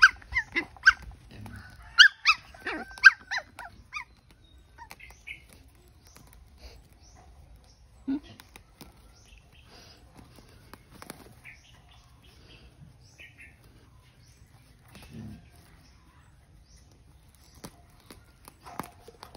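Puppies giving short yips and whimpers, bunched in the first few seconds, then mostly quiet with faint scattered clicks.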